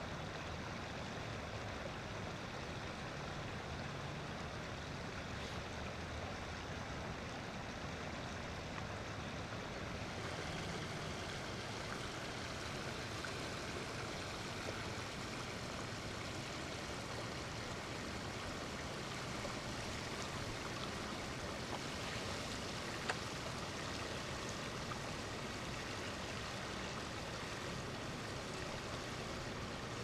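Steady outdoor hiss of ambient noise, growing brighter about ten seconds in, with one short tick about two-thirds of the way through.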